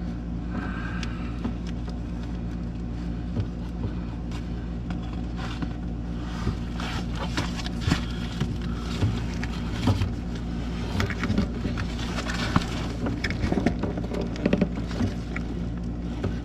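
Steady low machine hum under repeated clicks, taps and rustles of hands working a furnace condensate drain hose and its spring clip; the handling noises grow busier about halfway through.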